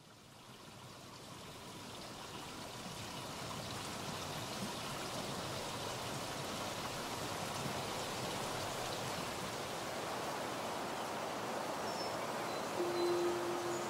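Flowing, trickling water, fading in over the first couple of seconds and then steady. A steady low tone comes in near the end.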